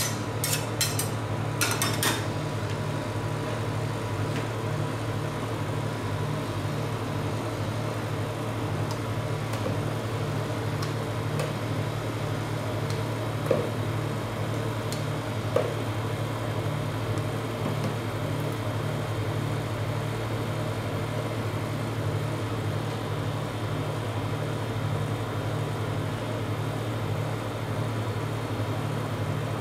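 Refrigeration unit of a rolled-ice-cream cold plate humming steadily with a fast even pulse. In the first two seconds, a few sharp clinks of metal spatulas striking the steel plate as they chop the frozen pieces.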